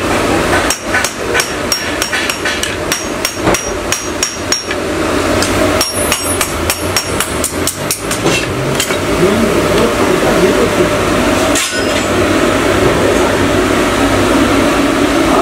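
Hand hammer striking a steel sickle blade on an anvil: quick light blows, about three a second, in two runs over the first nine seconds, each with a thin metallic ring, then one more knock later on. A steady hum runs underneath.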